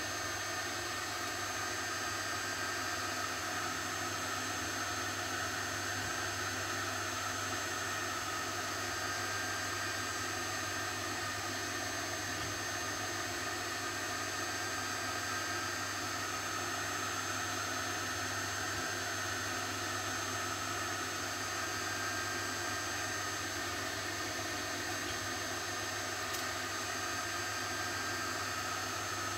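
Steady, even hum and hiss of a running machine with a faint high whine on top; it does not change at all.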